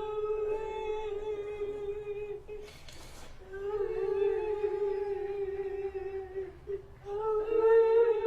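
A voice holding long, steady high notes, with a quick breath drawn about three seconds in and a short break near seven seconds before the note resumes.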